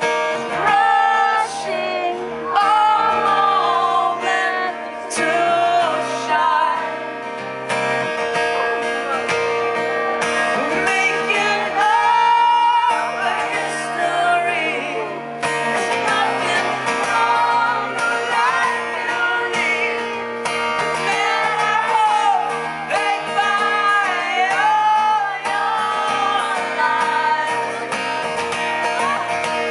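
Live rock song: acoustic guitar strumming under sung vocals, loud and continuous.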